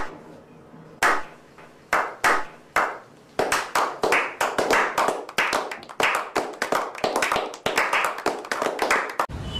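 A small group of people clapping: a few separate claps about a second apart at first, then quicker, continuous clapping from about three and a half seconds in that stops abruptly near the end.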